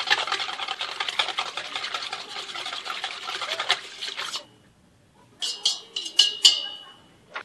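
A metal utensil stirring and beating a soft batter of margarine, egg and sugar in a stainless steel pot: fast, continuous scraping and clicking against the pot that stops suddenly about four seconds in. A couple of seconds later come a few sharp metal knocks that ring briefly.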